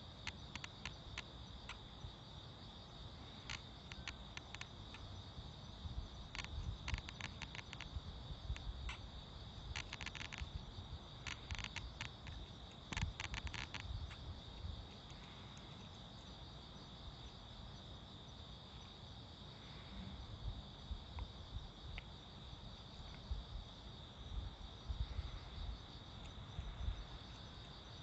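A steady chorus of crickets chirping in a continuous high band. In the first half, bursts of small crisp clicks come from the cat chewing its food at the dish.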